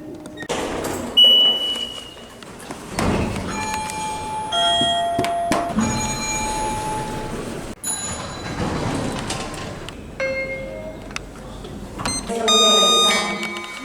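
A run of short electronic elevator chimes and beeps from several different lifts, one after another, each a brief tone or a quick group of tones at its own pitch, with lift and room noise in between.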